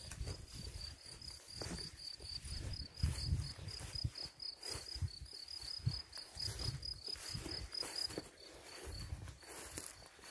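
An insect chirping in a steady series of short high notes, about four a second, which stops near the end. Irregular low thumps sound underneath.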